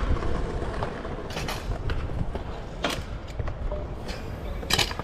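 Stunt scooter's wheels rolling over the concrete of a skatepark bowl, a steady low rumble, with three sharp clacks spread through it.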